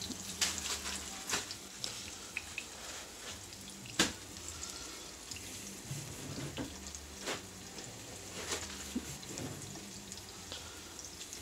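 Plantain slices frying in shallow oil over medium heat, a steady sizzle, with a few sharp clicks of a metal fork against the pan, the loudest about four seconds in.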